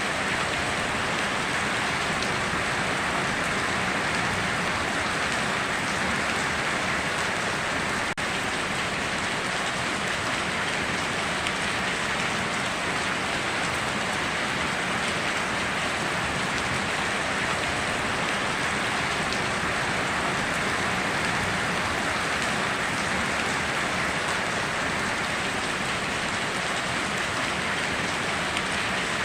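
Steady rain falling and pattering on surfaces: an even, unbroken hiss of drops with no change in strength.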